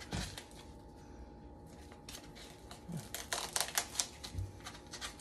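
Plastic film on a foam tray of ground beef crinkling under fingers picking at it to open the pack, in scattered runs of quick crackles that are busiest from about three to four and a half seconds in, over a faint steady hum.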